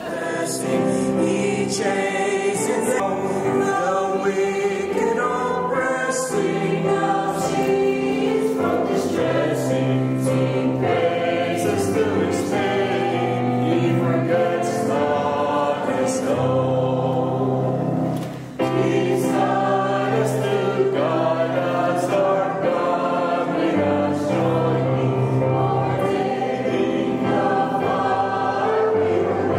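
Mixed choir of men and women singing a hymn into microphones, accompanied by a digital piano, with a brief break about two-thirds of the way in.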